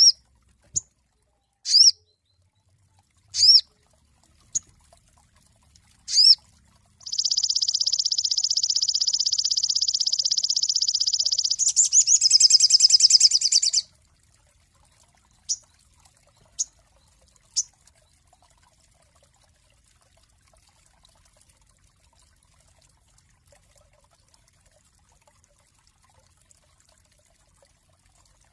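Sogon songbird calling: a few short, high chirps, then a long, dense buzzing trill of about four and a half seconds that breaks into a rapid run of notes. Three more brief chirps follow, and then the bird falls silent.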